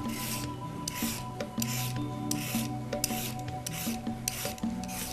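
Hand vegetable peeler scraping along a carrot in repeated strokes, about one every 0.7 seconds, over soft background music.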